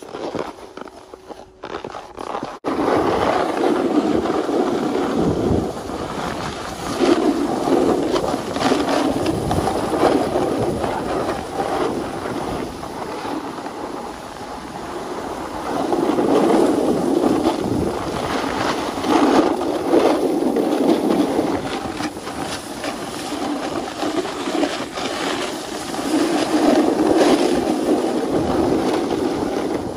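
Snowboard edge scraping and hissing across hard-packed groomed snow during a descent, swelling and easing in surges. It starts a couple of seconds in, after a short quiet moment.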